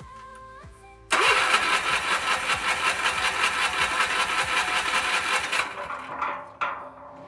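Small gasoline engine of a portable concrete mixer pull-started. It catches about a second in, runs loudly with fast even firing for several seconds, then fades out and dies. The fuel cock had been left shut, so no gasoline was reaching the engine.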